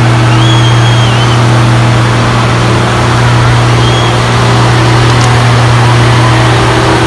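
AM General military cargo truck's engine working hard at a steady pitch while dragging a weight-transfer pulling sled.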